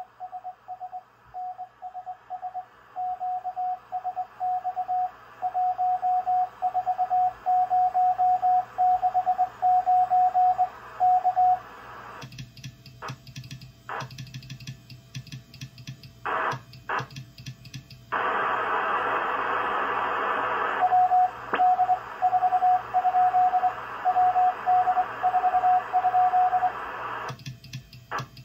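Morse code on a ham radio transceiver: a steady tone keyed on and off in dots and dashes. About 12 seconds in it gives way to crackling band static, which swells to a loud hiss for a few seconds. The keyed tone then returns for about five seconds, with static crackle again near the end.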